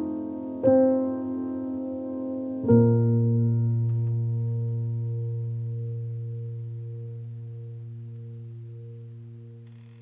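Piano music: a chord struck about half a second in, then a final chord near three seconds that rings on with a low bass note and slowly fades away.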